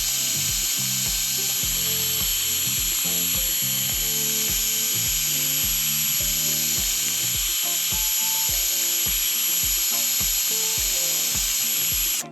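Power drill running steadily at full speed, cutting off suddenly near the end. Background music with a steady beat plays underneath.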